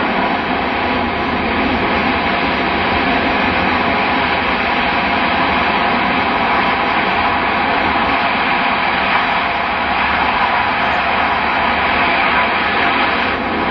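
Four turbofan engines of a C-17 Globemaster III running on the ground, a loud, steady jet roar as the aircraft moves on the runway.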